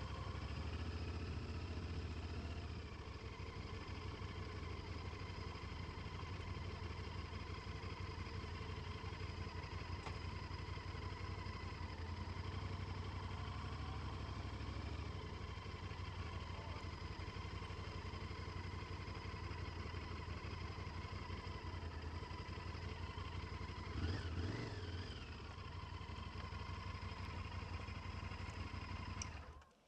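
Motorcycle engine running steadily, heard through a helmet-mounted intercom headset microphone. There is a brief louder moment about 24 seconds in, and the sound cuts off abruptly just before the end.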